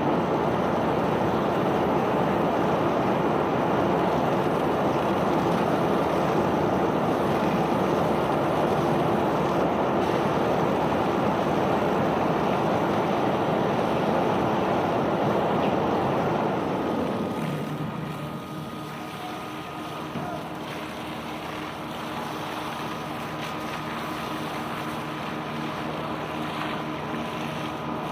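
A self-unloading barge discharging bulk cargo: a loud, steady rushing noise of pouring material that dies away about two-thirds of the way through, leaving the quieter hum of the barge's machinery with a few steady tones.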